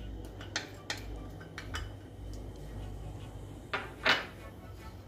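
Wooden spatula and small glass bowl knocking and clinking against a stainless steel frying pan as minced garlic and onion are scraped into melted butter: a few light knocks, with the two loudest close together about four seconds in.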